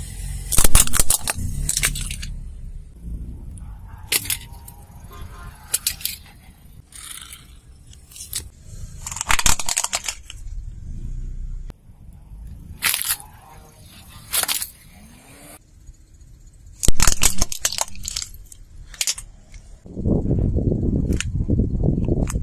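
Small plastic toys cracking and crunching under a car tyre: a series of sharp snaps and crackles spread through, then a steady low rumble of the tyre rolling on asphalt near the end.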